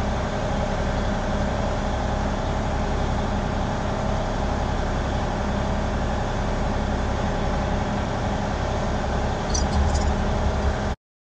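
A steady mechanical drone with a low hum. Near the end come a few light metallic clicks as a steel rod touches the brake rotor's hub.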